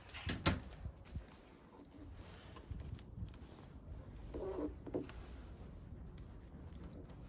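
Electrical tape being unwound and wrapped around the metal lock striker of a BMW X5 E53 tailgate, heard as faint handling noises: a couple of sharp clicks near the start, light rustling, and a short cluster of small crackles a little past the middle.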